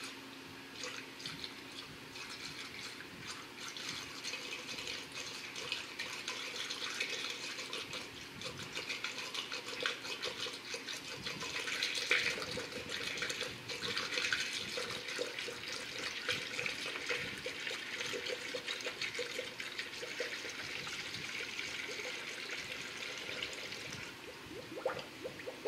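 Antifreeze coolant poured from a jug into a spill-proof funnel on a radiator filler neck: a steady splashing stream of liquid, heaviest about halfway through and thinning near the end.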